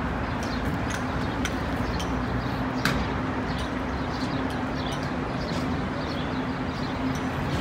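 City street ambience: a steady low hum under frequent short, high bird chirps, with one sharper click about three seconds in.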